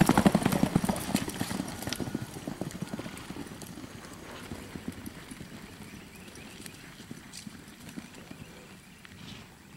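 Horse's hoofbeats on a dirt arena: a quick, dense loping rhythm, loud at first, that fades over the first few seconds to scattered, quieter steps.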